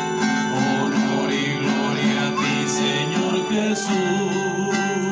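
Church music: acoustic guitars strumming steadily, the accompaniment to a sung psalm at Mass.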